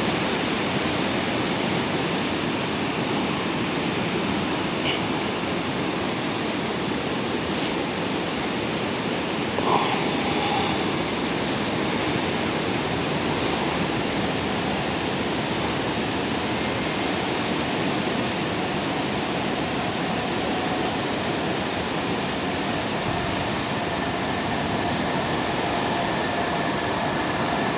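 Wind rushing steadily across the microphone on a blustery reservoir bank, a constant even noise, with one short faint tone about ten seconds in.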